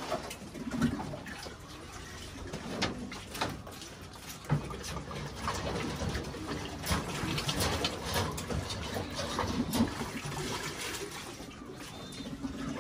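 Water splashing as pigeon drinkers are filled from a bucket. The drinkers knock and clatter repeatedly as they are handled, and pigeons coo now and then.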